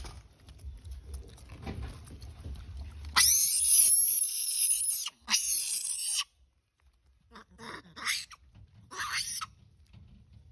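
Long-tailed macaque screaming: two long, loud, high-pitched screams about three seconds in, followed by several shorter calls.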